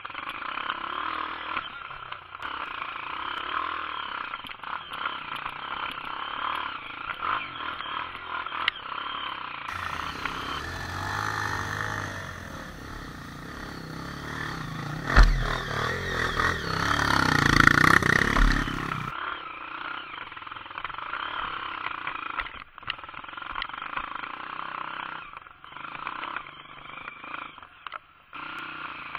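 Dirt bike engine running through a helmet camera as the bike works up a rutted trail, the revs rising and falling. In the middle stretch, from a second camera, a dirt bike revs up hard close by, with a sharp thump partway through.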